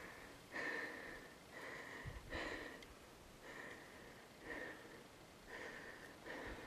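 A person breathing hard, with loud puffs of breath about once a second, like a hiker out of breath on a steep climb.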